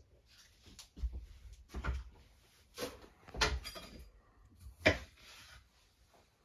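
A handful of knocks and bumps, like doors or drawers being handled in a small room: about five over four seconds, the sharpest about five seconds in.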